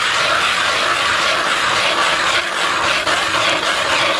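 Hand-cranked ice auger drilling through lake ice: the spiral blades scrape and grind steadily as they shave the ice, with a faint repeating rasp as the crank turns.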